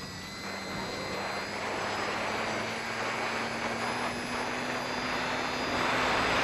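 Radio-controlled model plane's motor and propeller running at high power during the climb, heard close up from the onboard camera with air rushing past the microphone. The steady drone and high whine edge slightly up in pitch and grow louder.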